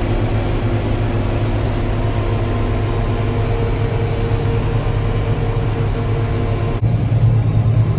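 Amadas 9960 peanut combine running steadily at harvest: a loud, even machine hum with a few steady whining tones over a broad rush of noise. About seven seconds in it changes to a deeper, heavier engine drone with less of the high rush.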